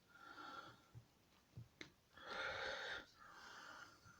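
Faint breathing close to the microphone, a few soft breaths in and out, with a couple of small clicks about a second in and again near the two-second mark.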